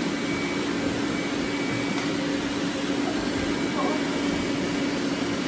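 Robot vacuum cleaners running: a steady whirring hiss of suction fans and brushes with a constant low hum.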